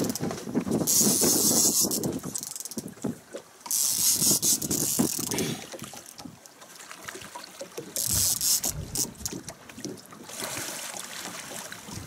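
Fishing reel clicking as it is cranked, bringing a hooked white sturgeon up to the boat, with three loud spells of hiss: about a second in, near four seconds and around eight seconds.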